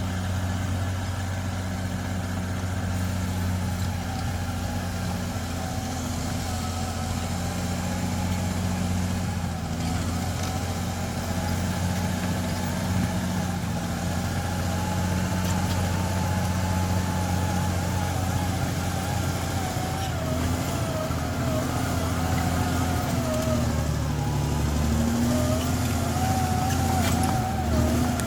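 Bulldozer's diesel engine running steadily as it works, a low drone with a higher wavering whine over it; the engine note shifts about three-quarters of the way through.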